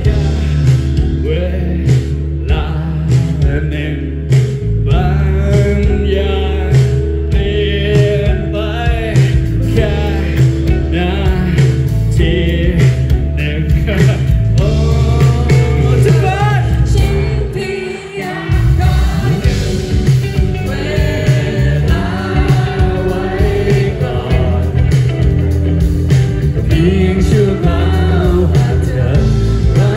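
Live band playing a song through a loud PA: vocals sung over drums and guitars. About eighteen seconds in, the low end drops out for a moment and then comes back in.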